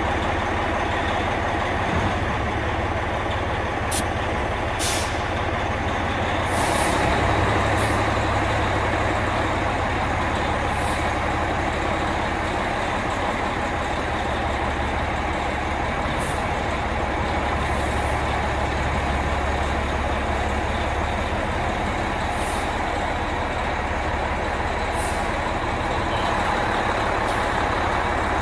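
Oshkosh truck's diesel engine idling steadily, heard from inside the cab, with short sharp air hisses from the truck's air system every few seconds.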